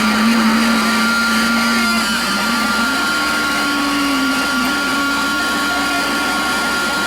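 Steady motor drone and whine, its low hum stepping up in pitch two to three seconds in, with two steady high tones above it.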